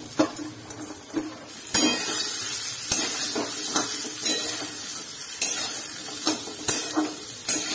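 Sliced jackfruit seeds sizzling as they fry in hot oil in a steel kadai, with a steel spatula scraping and clinking against the pan as they are stirred. The sizzle starts up loudly a couple of seconds in and keeps on, under repeated sharp clinks.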